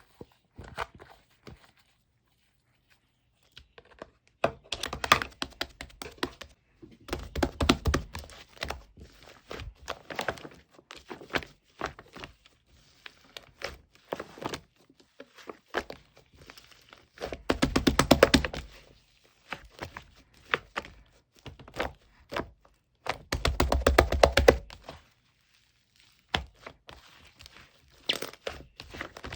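Slime being pressed, folded and squeezed by hand, giving off runs of wet crackling and popping clicks in several bursts with short pauses between them.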